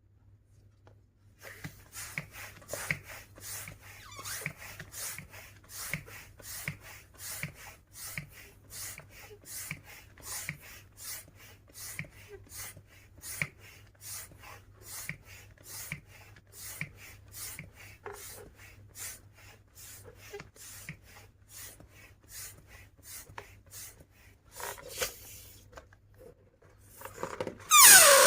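Rubber balloon being handled: short squeaky rubbing sounds repeating about two to three times a second for over twenty seconds. Just before the end a loud squealing whine starts suddenly and sweeps up and down in pitch.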